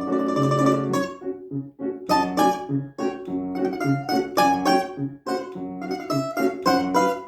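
Plucked string instrument playing a lively, rhythmic solo line of short picked notes over low bass notes, with a rapidly repeated tremolo note in the first second.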